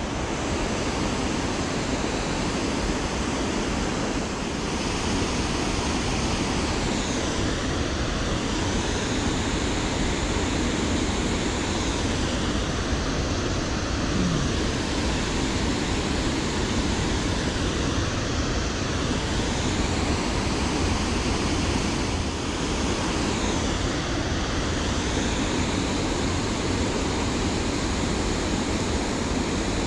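Steady rush of river water pouring over a low-head dam and running through rocky shallows.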